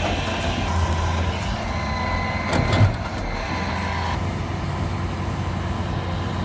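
Heavy truck engine running steadily, with a whine for a few seconds and one brief louder burst a little before the middle.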